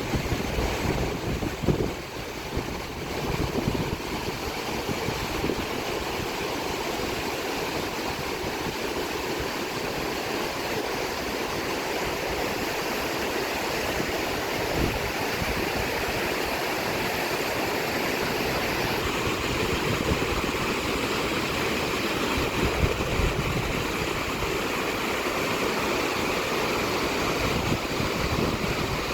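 Fast-flowing floodwater rushing in a swollen stream after heavy rain, a steady, even rush of water. A few low bumps come in the first few seconds.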